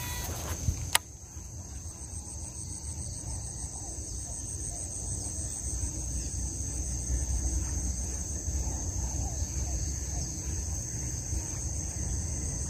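Steady high-pitched trilling of insects, over a low rumble of wind on the microphone. A sharp click comes about a second in.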